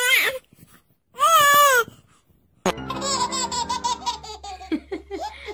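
A baby's drawn-out wavering cry, twice in the first two seconds, then after a cut a toddler laughing in quick bursts over background music.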